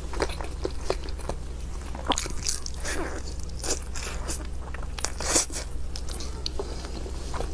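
Close-miked eating: a person biting into and chewing food, with irregular crunches and clicks.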